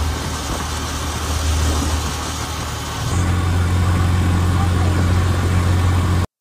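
Motorcycle engine of a tricycle (motorcycle with sidecar) running along the road, heard from inside the sidecar with steady road noise. The engine gets louder about halfway through, and the sound cuts off suddenly at the very end.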